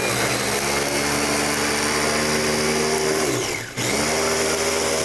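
Electric blender motor running loudly, chopping garlic, hot pepper, lemon and spices with a little water. About three and a half seconds in it winds down briefly, then spins back up and runs on.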